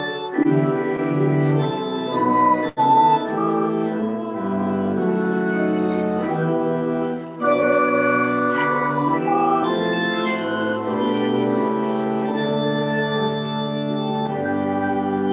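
Pipe organ playing slow, sustained chords that change every second or so.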